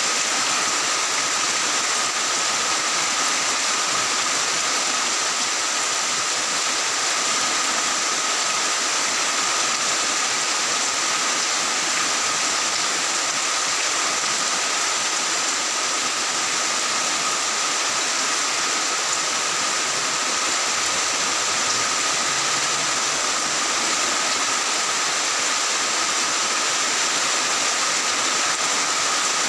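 Heavy rain pouring down onto tile roofs, a steady, even hiss that does not let up.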